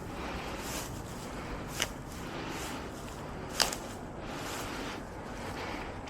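Grass being plucked up by hand, a rustling that comes and goes, with two short sharp snaps about two seconds and three and a half seconds in.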